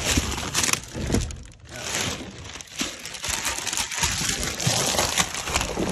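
Clear plastic wrapping around a new truck grille crinkling and rustling as it is handled in its cardboard box, an irregular crackle with many sharp little spikes.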